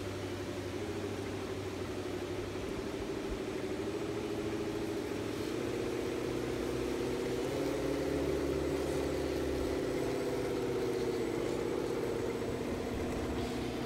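Tamiya HighLift radio-controlled scale truck crawling through mud, its electric motor and gearbox giving a steady whine. The pitch steps up twice and drops back once as the throttle changes.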